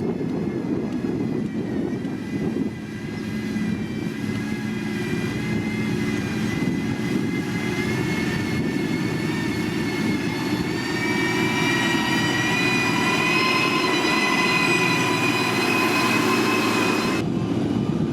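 Heavy road-construction machinery engine running steadily under load, with a high whine that grows over the second half, rising slightly in pitch, and cuts off suddenly near the end.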